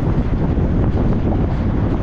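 Steady rushing wind and road noise from a car driving along a highway, with wind buffeting the microphone.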